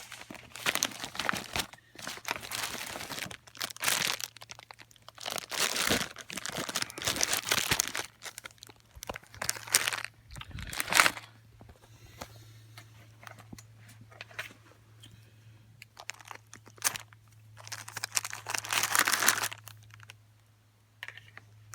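Thick plastic MRE pouch being torn open and its packets pulled out, crinkling and crackling in uneven bursts with short pauses and a sharp crack about eleven seconds in.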